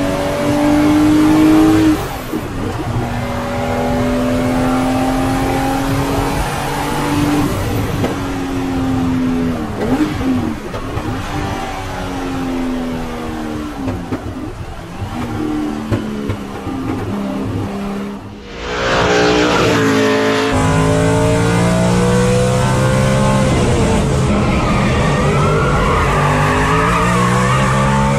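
Race car engines at high revs, accelerating and shifting through the gears: the pitch climbs and falls back again and again. About 18 seconds in, the sound cuts briefly and a second car's engine takes over, also revving hard.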